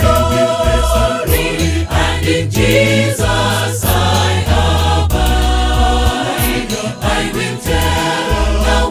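Mixed church choir singing a gospel hymn, with a deep, steady bass line stepping from note to note underneath.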